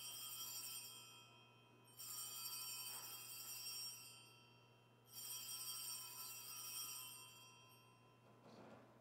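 Altar bells rung at the elevation of the consecrated host: a ring dying away, then two more rings about three seconds apart, each a bright cluster of high tones fading out.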